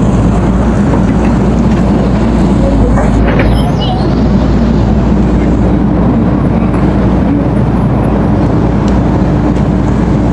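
Excavator's diesel engine running steadily with a loud, continuous low drone.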